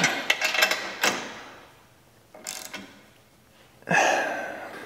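Ratchet wrench clicking on a 7/16 nut as a canopy mounting bracket is bolted to a tractor's rollover bar, in three short spells with pauses between.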